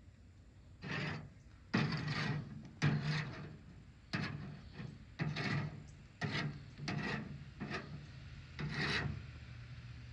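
A series of rough scraping strokes, about nine in all, roughly one a second, each starting sharply and lasting under a second.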